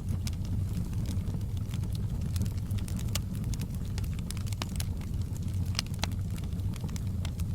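Wood fire burning in a fireplace: a steady low rumble of flames with scattered, irregular sharp crackles and pops from the logs.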